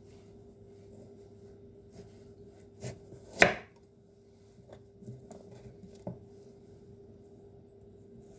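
Kitchen knife cutting carrot on a cutting board: several separate knocks of the blade on the board, the loudest about three and a half seconds in. A faint steady hum runs underneath.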